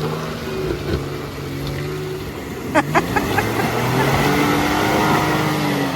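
Truck engines running and revving under load while a pickup stuck in a deep mudhole is winched out, with a few sharp knocks a little before halfway.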